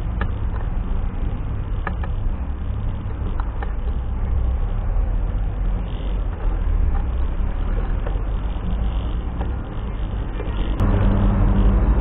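Steady low rumble of wind buffeting a bicycle-mounted camera's microphone, with tyre and road noise from the ride and a few faint clicks from the bike. It grows louder near the end.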